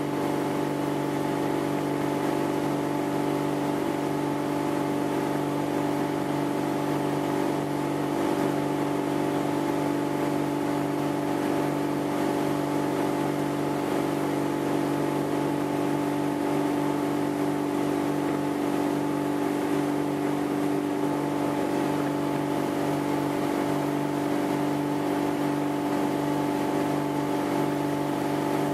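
Ski boat engine running steadily at towing speed, a constant drone with a steady rush of water over it.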